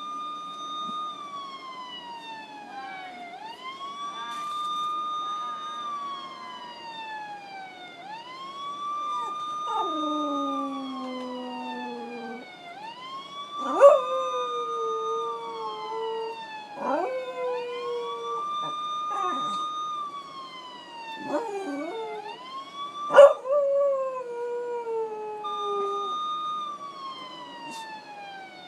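Police siren wail played through a phone speaker, rising, holding and falling about every three and a half seconds. From about ten seconds in, a dog howls along: several long howls that start sharply and slide down in pitch, the loudest peaks coming at the start of a howl.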